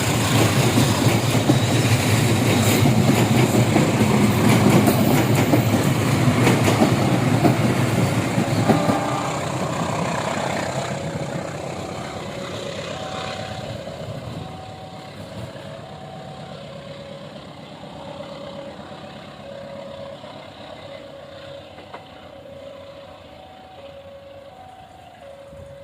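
Train passing over a level crossing at speed, its wheels rumbling loudly for about nine seconds and then fading away. As it recedes, the crossing's warning signal is heard alternating between two pitches.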